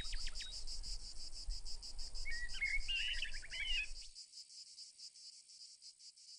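Insects chirring in a rapid, steady pulse, with a bird calling in short whistled phrases at the start and again from about two seconds in. A low rumble underneath cuts off suddenly about four seconds in, leaving only the insect chirring, which fades.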